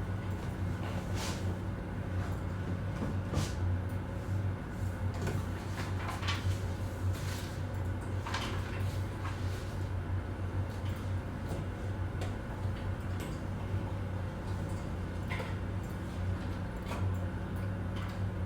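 Office ambience: a steady low hum with scattered clicks and knocks every second or few.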